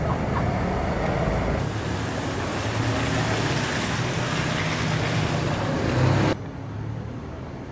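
Steady rushing road and engine noise of a moving vehicle, dropping suddenly to a quieter hum about six seconds in.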